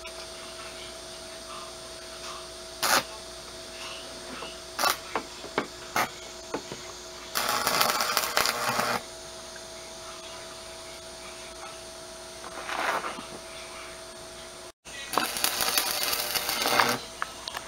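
Electric arc welding of steel rebar: a few short sharp snaps, then two bursts of sizzling crackle from the welding arc, each about a second and a half, one near the middle and one near the end.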